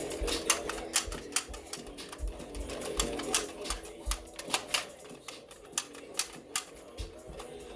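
Shotgun being handled and reloaded: an irregular run of sharp clicks and taps, a few louder than the rest, over faint background music.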